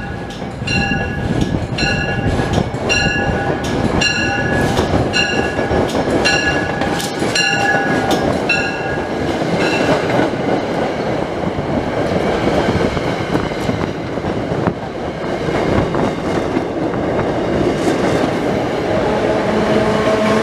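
Commuter train running through the station with a steady rumble and rail clatter. A grade-crossing bell rings about twice a second for roughly the first nine seconds, then stops.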